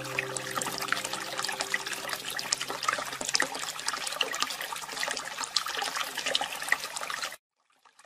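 Water trickling and splashing with many small droplet sounds, like a small stream. It cuts off suddenly about seven seconds in.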